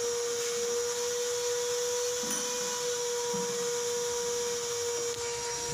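A steady, even machine whine over a hiss, like a small electric motor running continuously.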